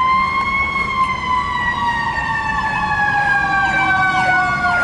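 Emergency vehicle siren: a long wail that peaks just after the start and then slowly falls in pitch. A faster, repeating up-and-down yelp joins it from about a second and a half in.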